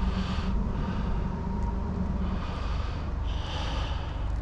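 A person breathing audibly close to the microphone, a few breaths half a second long, over a steady low rumble.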